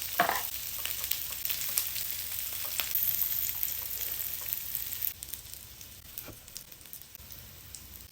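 Food sizzling and crackling on a Korean barbecue grill, with sharp pops and clicks over a steady hiss. The sizzle gets quieter about five seconds in.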